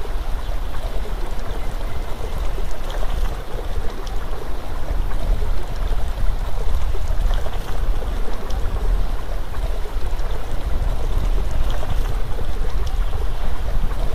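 Steady outdoor rushing noise with a heavy low rumble and a few faint ticks, like flowing water or wind on the microphone.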